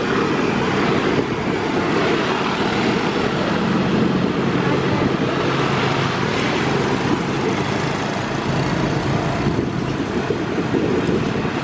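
Steady vehicle running noise and low rumble, heard while travelling along a road, with a faint steady hum underneath.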